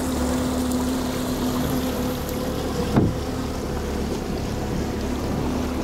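Stabicraft 2050 Supercab's outboard engine running steadily at low cruising speed, over a constant wash of water and wind noise. There is a single sharp knock about three seconds in.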